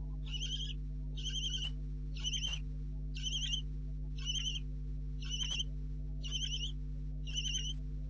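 Barn owlets in the nest box calling, a short wavering call repeated about once a second, over a steady low electrical hum.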